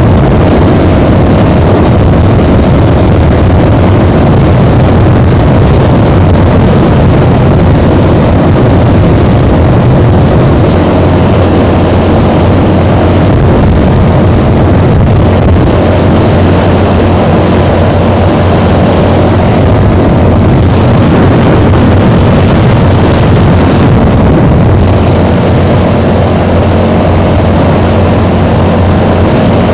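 Loud, steady vehicle engine noise with wind on the microphone while riding at speed.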